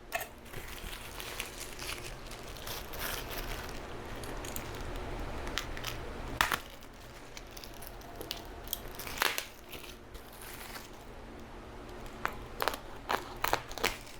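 Crinkling and rustling of plastic packaging being handled, with a few sharper crackles scattered through it.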